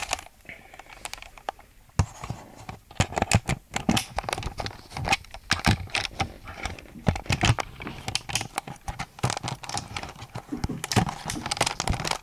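Rustling and clattering of things being handled and moved about, with many short sharp clicks and knocks in irregular clusters.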